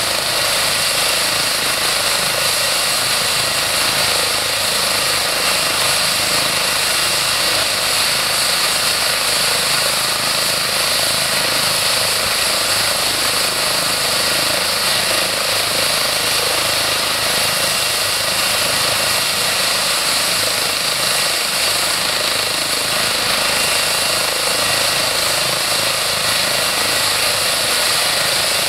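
Eurocopter EC135 twin-turbine helicopter running on the ground with its main rotor turning. It gives a steady high turbine whine over a constant rush of rotor and engine noise, with no change in power.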